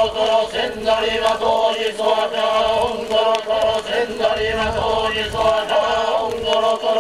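A group of voices chanting Buddhist sutras in unison, a steady droning recitation with short regular breaks for breath.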